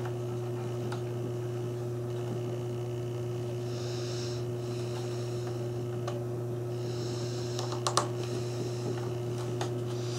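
Steady electrical mains hum, with a few light clicks and taps of small wooden parts being pressed into place and handled, a small cluster of them about eight seconds in.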